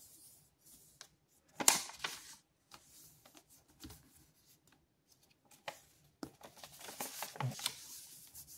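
A sheet of paper being handled and folded against a hard notebook cover, rustling and sliding, with a louder swish about 1.7 s in. It goes quiet for a second or two in the middle, then rustles again as the fold is lifted and creased.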